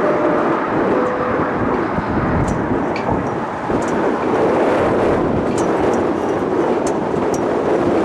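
Steady roar of a jet airliner's engines, mixed with strong gusty wind buffeting the microphone.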